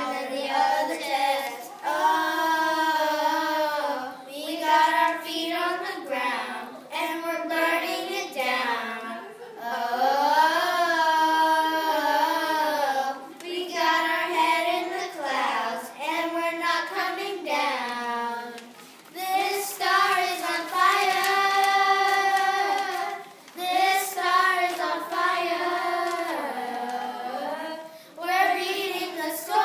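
A small group of children singing together from lyric sheets, in melodic phrases with held notes and short breaks between lines.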